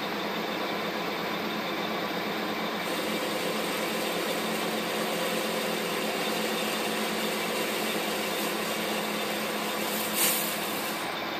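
Metal-working lathe running under power, its motor and gearing humming steadily while the tool cuts the end of a spinning metal bar and throws off chips. A brief, sharper burst of cutting noise comes near the end.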